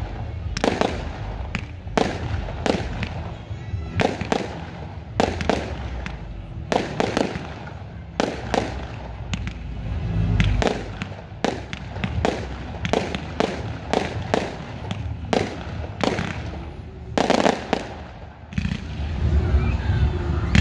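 Aerial fireworks display: shells bursting in quick succession, about two bangs a second, with a short lull near the end.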